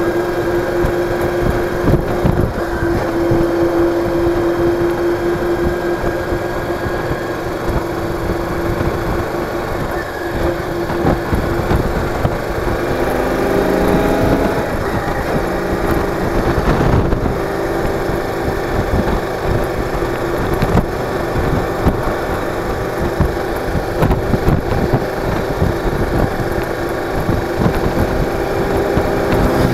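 Cruiser motorcycle's engine running under way, with road and wind noise; about halfway through the engine note shifts and rises.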